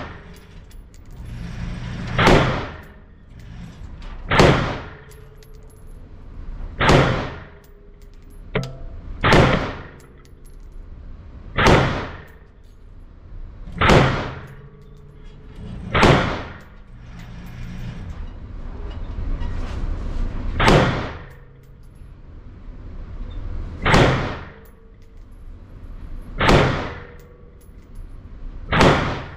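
A Ruger AR-556 MPR 5.56 rifle fired in slow, aimed single shots, about eleven in all, two to three seconds apart with one longer pause past the middle. Each loud report rings on in the reverberant indoor range.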